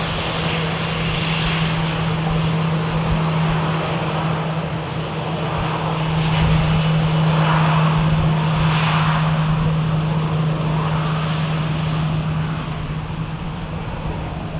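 Jet engines of an Airbus A320 running at low power as it taxis: a steady hum with a low drone. The sound swells louder about halfway through, then eases off.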